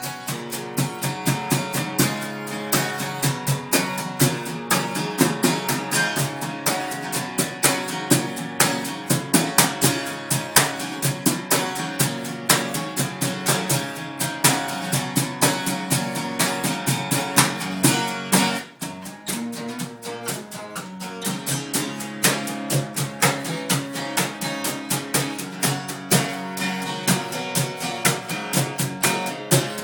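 Acoustic guitar strummed in a steady rhythm, with a cajon struck with a brush keeping time in close, regular hits. The playing drops out briefly a little past halfway, then resumes.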